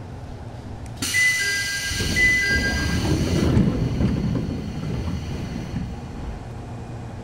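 Doors of a Jōmō Electric Railway 700-series (ex-Keio 3000) train opening just after a station stop. A sudden loud hiss of air from the door engines about a second in, with high chiming tones over it for the first second and a half, is followed by a low rumble as the doors slide open.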